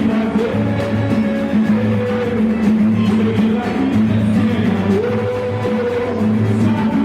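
Live samba group performing: a band with a steady bass pulse and a sung melody.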